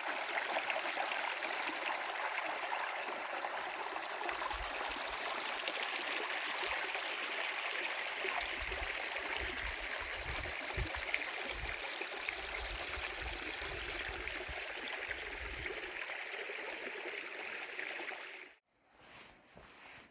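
A stream of water rushing steadily. It cuts off abruptly near the end, leaving fainter, uneven sounds.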